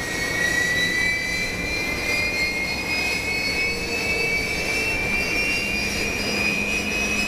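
Kawasaki T-4 jet trainer's turbofan engine whining as it spools up on the ground. A high whine rises slowly and steadily in pitch over a steady rushing noise, typical of an engine start before taxi.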